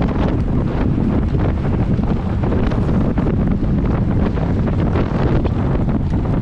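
Wind buffeting a bicycle-mounted camera's microphone as the bike moves at racing speed, a loud, steady low rumble with constant flutter.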